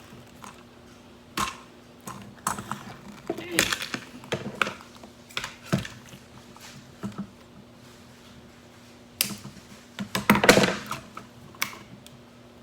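Toy packaging being handled and pulled at: irregular clicks, knocks and crinkles of plastic and cardboard, with the loudest cluster about ten seconds in.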